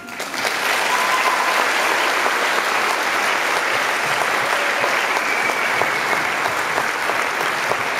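Audience applauding, a dense steady clapping that swells in just as the music stops.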